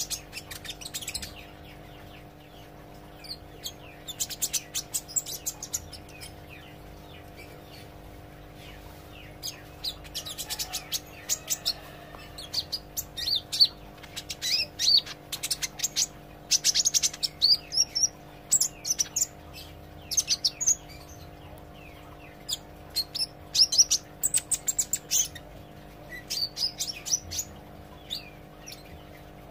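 A kolibri ijo (sunbird) singing in quick bursts of high, thin chirps and twitters, with short pauses between the bursts, over a steady low electrical hum.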